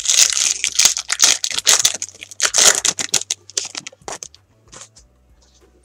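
Foil wrapper of a 2017 Bowman Chrome baseball card pack being torn open and crinkled: a run of crackling rustles for about three seconds, then a few lighter clicks before it goes quiet as the cards come out.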